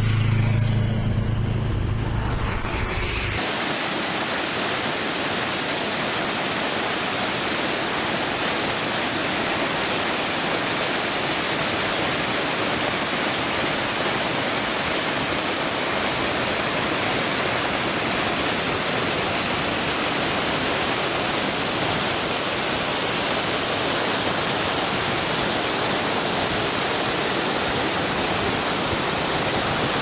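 Scheidegg waterfall: a steady rush of falling water, which cuts in about three seconds in after a low steady hum.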